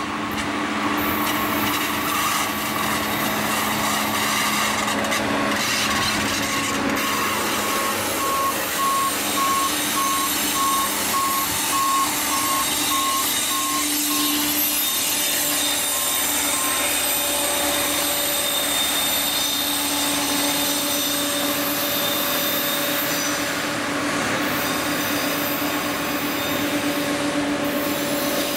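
Harsco rail track maintenance machine's diesel engine running as it travels past on the rails, with a steady mechanical hum. A regular beeping warning alarm sounds for several seconds in the middle.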